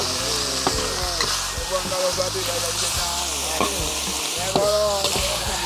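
Food frying and sizzling in a hot pan, a steady hiss, with short pitched sounds that bend up and down in the background.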